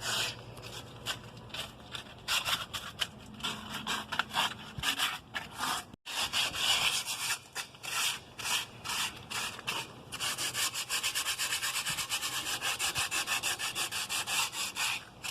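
Hand sanding: quick back-and-forth rubbing strokes, irregular at first, then a fast even run of about five strokes a second from about ten seconds in.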